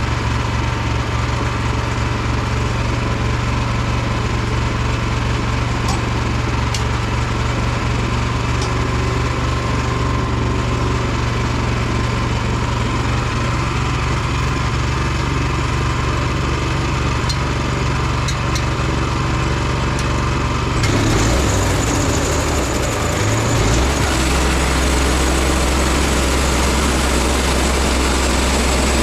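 Small engine of a portable sawmill running steadily while milling a log; a little over 20 seconds in its note wavers, then drops and settles lower.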